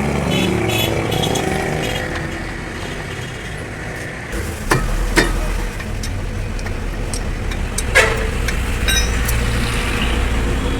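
A motor vehicle engine runs with a steady low rumble, and a few sharp metal clinks cut through it about halfway in and again near eight seconds in.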